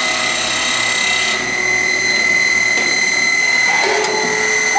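Citizen Swiss-type CNC lathe running under power, its spindle drive giving a steady high-pitched whine over a mechanical hum. More high tones join in about a second and a half in.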